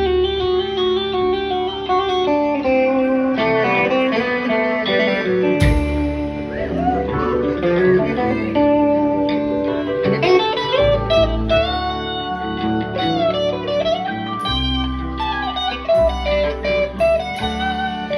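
Live band playing an instrumental jam: electric guitars play bending lead lines over bass and drums.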